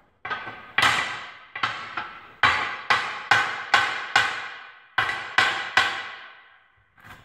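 Hammer blows on the steel lock ring of a 25-inch split-rim loader wheel, driving the ring into its groove. About a dozen sharp strikes at roughly two a second, each ringing out like struck metal, with two short pauses.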